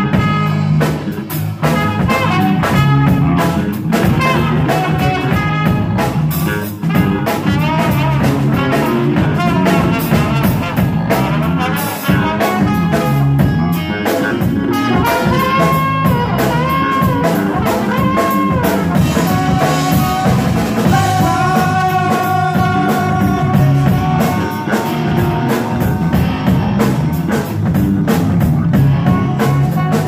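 Live band playing: trombone, electric guitar, electric bass and drum kit together, with steady drum hits under the melody.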